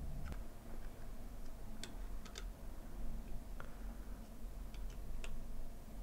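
Scattered small sharp clicks and ticks as an Allen key turns and seats a screw in a SmallRig NP-F battery adapter plate, over a low steady hum.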